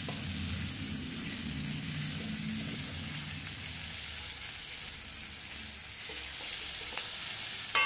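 Capsicum, onion and tomato strips sizzling steadily in hot oil in a kadai, with a slotted metal spatula in the pan. A light click about seven seconds in and a short metallic click near the end.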